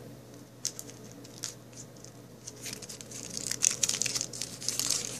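Crinkling and crackling of a band-aid's paper wrapper being handled and pulled open, sparse at first and busier in the second half.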